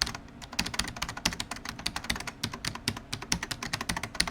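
Fast typing on a computer keyboard: a quick, uneven run of sharp key clicks, several a second.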